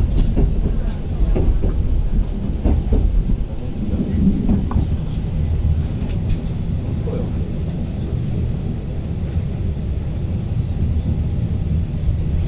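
Steady low rumble of an electric train, with scattered clicks and knocks.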